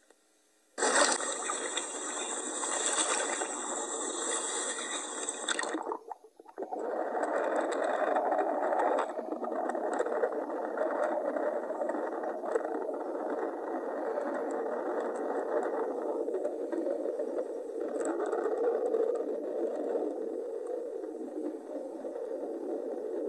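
Water noise picked up by an underwater camera: a sudden bright rushing hiss for about five seconds, then after a short dip a steady muffled rush of water with scattered small clicks.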